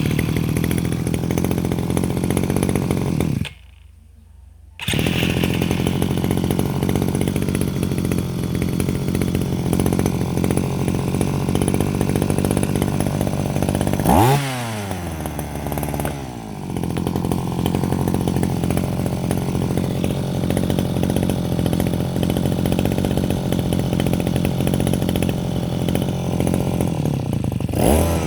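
Small two-stroke engine of a Japanese G2K brush cutter running steadily, with a break of about a second early on. About 14 seconds in it revs up sharply and falls back, and it revs up again near the end.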